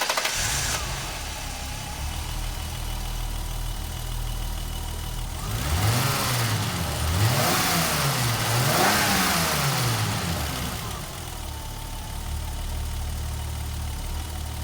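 BMW E30 325i's 2.5-litre straight-six, just started, idling steadily. Partway through it is revved three times, each rev rising and falling back, and then it returns to idle.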